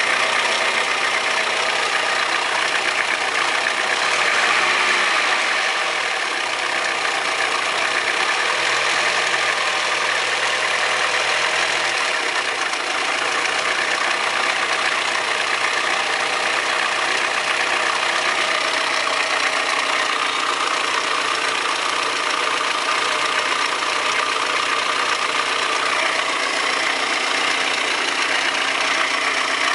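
Audi 100 2.0 16V four-cylinder engine idling steadily with a fast rattling, tapping noise, which the owner suspects may be bad lifters or a rod bearing.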